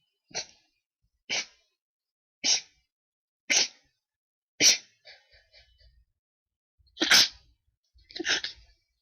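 A person's sneezing fit: seven short, sudden sneezes, about one a second, with a brief pause and a few faint breaths after the fifth before two more.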